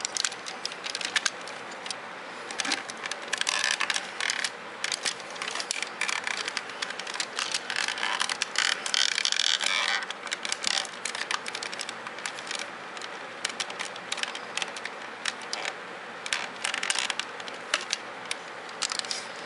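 Hard plastic parts of a Robots in Disguise Optimus Prime transforming toy clicking and scraping as its arm and joints are moved by hand: a run of quick clicks, busier about four seconds in and again around nine seconds.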